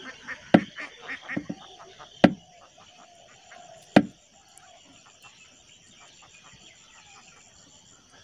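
Combination pliers crimping a small lug onto twisted flexible wire: sharp metallic clicks of the jaws, the loudest about half a second, two and a quarter and four seconds in, with lighter clicks and handling in the first second and a half.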